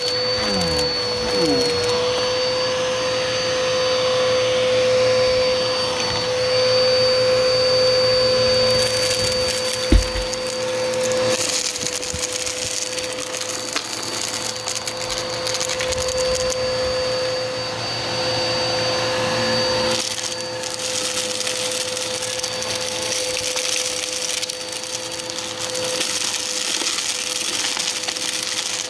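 Vacuum cleaner running with a steady whine, sucking up crunchy debris that crackles through the noise of the motor and airflow. There is one sharp thump about ten seconds in.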